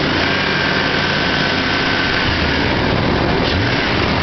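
Jeep engine running steadily, fitted with an aftermarket air intake kit, with a faint thin whine over the engine noise through the first half.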